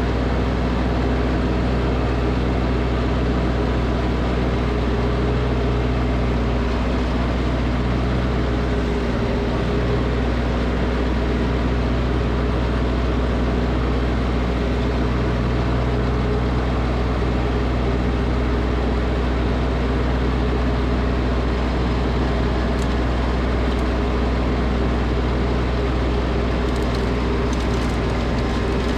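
Snowblower engine running steadily at constant speed.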